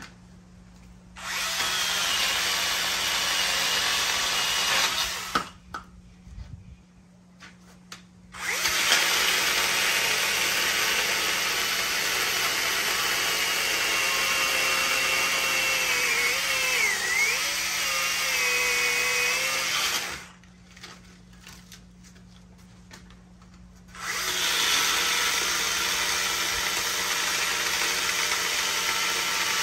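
Cordless Vanpore mini chainsaw running in three long bursts with short pauses between them, its chain cutting through a thick, hard, dead ficus branch. The motor's whine dips briefly in pitch about two-thirds of the way through the middle burst.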